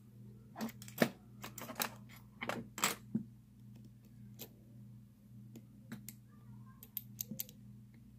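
Small metal clicks and clinks of padlock parts and tools being handled while the lock is put back together. There is a quick flurry in the first three seconds and a few more clicks near the end, over a steady low hum.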